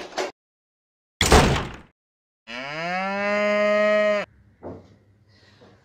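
A short, loud noisy burst about a second in, then a cow mooing: one long call that rises briefly, holds for nearly two seconds and cuts off sharply.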